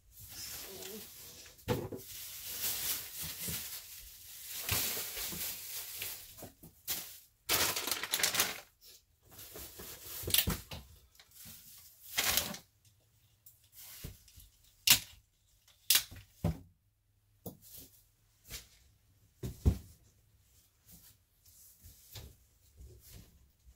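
Plastic shopping bags rustling and crinkling as goods are handled and packed into cardboard boxes, for several seconds at a stretch. After that come scattered sharp knocks and thuds of items, among them plastic bottles, being set down in the boxes.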